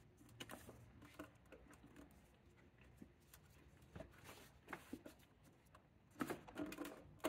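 Near silence, with faint scattered clicks and rustles of gloved hands working hoses and connectors in an engine bay, a slightly louder patch of handling noise near the end and a sharp click at the very end.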